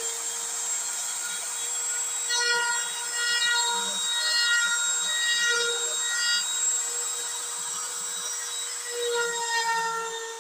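A DIY CNC router is carving into MDF. Its compact trim-router spindle runs with a steady high whine while the bit cuts, and stacks of motor tones come and go in short stretches as the head moves.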